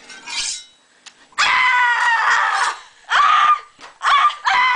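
A girl screaming in high-pitched cries: one long scream starting about a second and a half in, then shorter screams.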